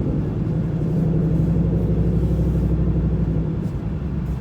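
Straight-piped Ford 5.0 V8 exhaust running steadily with a low, even drone.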